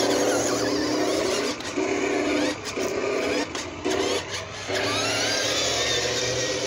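Battery-powered electric motor and gearbox of a New Bright 1:6-scale RC Ford F-150 truck whining as it drives over grass. The whine cuts out and comes back several times between about one and a half and five seconds in, then runs on steadily with a rising whine.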